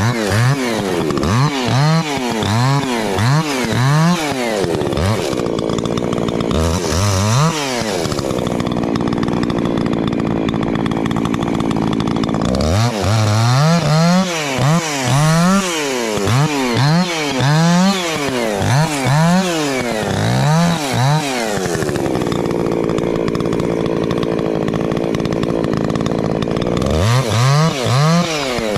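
Two-stroke chainsaw limbing a fallen tree: the engine is blipped up and down in quick revs, about one a second, between longer stretches held steady at full throttle while cutting.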